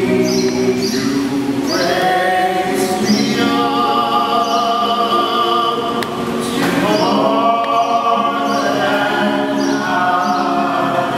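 A small group of young men and women singing sustained harmonies in several parts, their voices echoing under a stone arcade. One phrase ends about six seconds in and a new one swells up.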